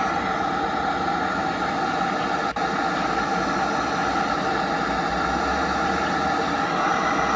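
Emergency alert attention tone, a steady harsh tone buried in heavy static, with a brief dropout about two and a half seconds in.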